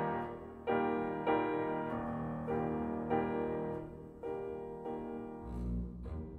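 Background music: slow piano chords struck one after another, with low bowed strings coming in near the end.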